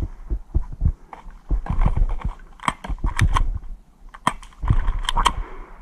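Footsteps and gear thudding against a body-worn microphone, with a handful of sharp clicks or knocks, some in a quick cluster about halfway through and more near the end.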